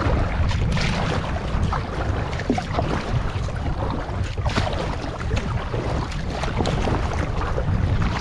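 Kayak at a riverbank as its paddler tries to climb out: water splashing with scattered small knocks, under heavy wind rumble on the microphone.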